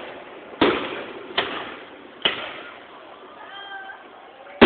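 Aerial fireworks going off: three sharp bangs a little under a second apart, each trailing off. Near the end comes a brief, faint, wavering pitched sound.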